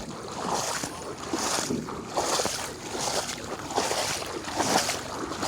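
Rhythmic swishing splashes of water, roughly one every second.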